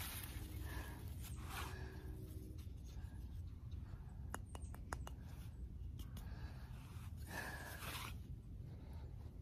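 Three loud breaths from the fire-maker after spinning a hand drill, with a few light wooden clicks about four to five seconds in as the fireboard is lifted off the freshly made ember; a steady low rumble runs underneath.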